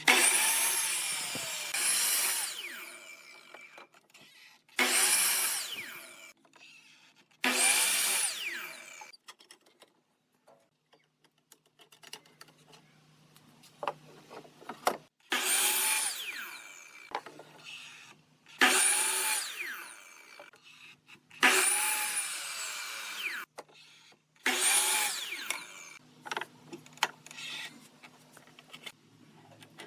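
A power tool working wood in short bursts, about eight times. Each burst starts loud and dies away with a falling whine as the motor winds down.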